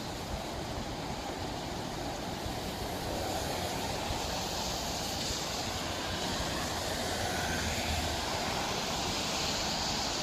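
Steady rushing noise of traffic passing on a wet road, with no distinct events.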